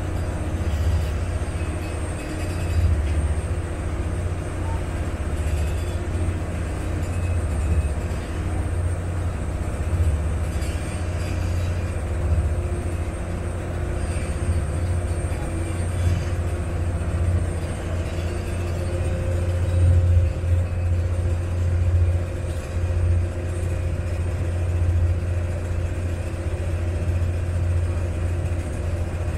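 Steady low engine drone of a Venice vaporetto water bus under way, with a few faint steady hums above the rumble.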